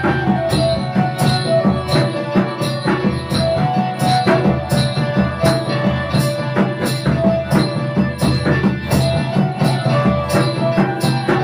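Transverse bamboo flute playing a folk melody in held and moving notes, over harmonium and a steady beat of hand-drum strokes.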